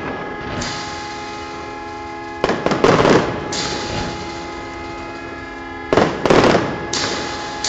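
Aerial fireworks shells bursting: two clusters of loud bangs, about two and a half seconds in and again about six seconds in, each fading out slowly as it echoes.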